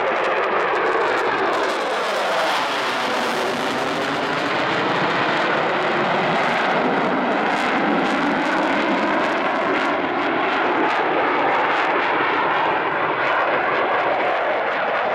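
Eurofighter Typhoon's twin EJ200 turbofan jet engines, a loud steady jet roar as the fighter flies a display pass, with a whooshing tone that sweeps down in pitch during the first few seconds.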